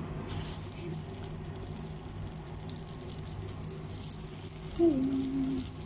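Egg-and-flour-battered vegetable pieces dropped into hot oil in a frying pan, the oil sizzling and hissing. The sizzle rises sharply a moment in. Near the end, a short pitched sound falling slightly in pitch is briefly the loudest thing.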